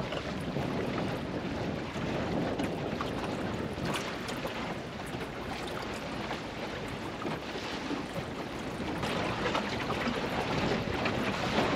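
Water rushing and splashing along the hull of a small open sailing dinghy under way in choppy water, with wind buffeting the microphone.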